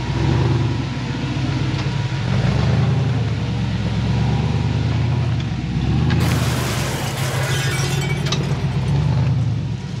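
Rock-crawling buggy engine running at low speed, revving up and easing off as the buggy works over the rocks. There is a rush of noise for a couple of seconds about six seconds in.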